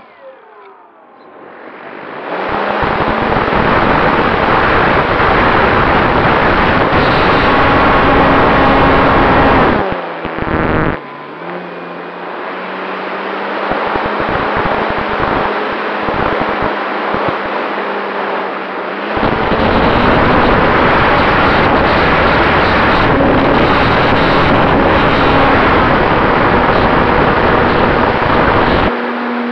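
Radio-controlled Cessna 188 model in flight, heard from its onboard camera: its engine and propeller running under heavy wind rush. The sound drops away at the start, swells back after about two seconds, eases to a steadier lower hum around ten seconds in, and opens up again around nineteen seconds.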